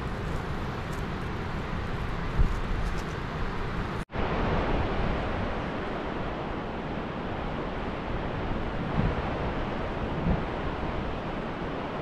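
Steady rushing of a fast-flowing river, with a few low thumps on the microphone; the sound drops out for an instant about four seconds in.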